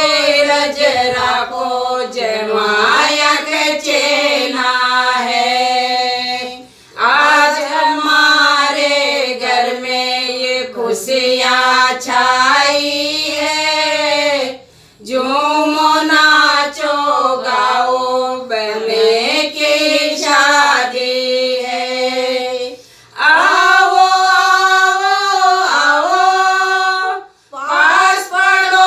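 A small group of women singing a Hindi banna-banni wedding song together, unaccompanied, in long phrases with brief breaks between lines every several seconds.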